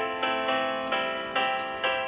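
Background music: a light melody of notes struck about twice a second, each fading before the next.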